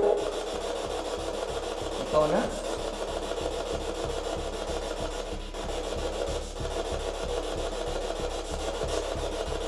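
Spirit box scanning through radio stations: a steady hiss of radio static chopped in a fast, even rhythm, with a brief voice-like snatch about two seconds in.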